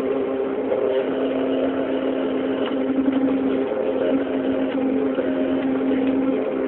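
CNC machine running: a steady motor hum with one strong held tone that dips and shifts slightly a few times, over a hiss.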